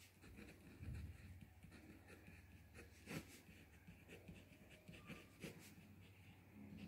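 Faint scratching of a ballpoint pen writing on paper, in short irregular strokes, one sharper stroke about three seconds in.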